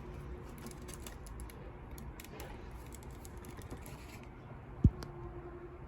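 Damp cloth wiping and rubbing over rusted rivets on leather, with light scattered clicks. A single dull thump about five seconds in.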